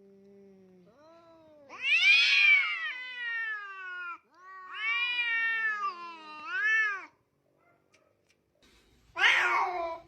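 Domestic cat meowing: four drawn-out calls that bend up and down in pitch. The first, about two seconds in, is the loudest and longest, two more follow closely, and a shorter one comes near the end.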